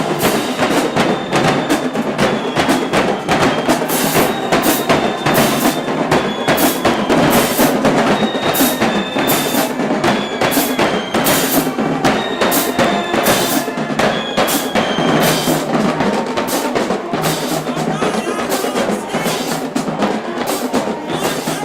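Marching band drumline playing a cadence: sharp, evenly spaced drum strikes at a steady beat, with short high tones ringing over them.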